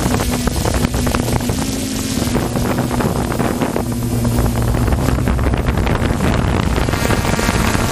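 Open-class personal watercraft engines (1100–1500cc) running at racing speed, a steady engine drone, with wind buffeting the microphone.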